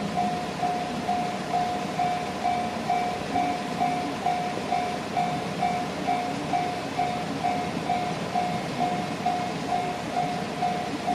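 Japanese level crossing's electronic warning bell ringing in an even beat, a little over twice a second, under the rumble of a train running through the crossing.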